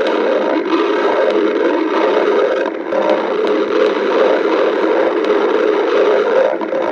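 A woman's stomach growling and gurgling in a long continuous rumble, easing briefly about three seconds in and again near the end.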